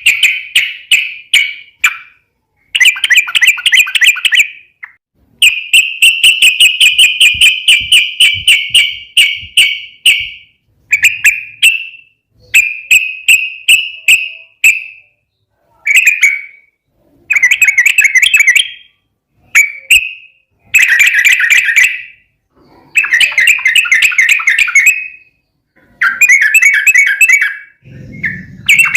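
Yellow-vented bulbul (trucukan) singing loudly: repeated bubbly, chattering phrases of many quick notes, each lasting one to three seconds, with short pauses between them.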